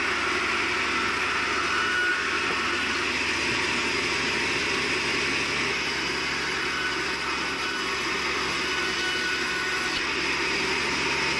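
Steady machine drone with a constant hiss, even in level and without distinct knocks: sawmill machinery running out of sight.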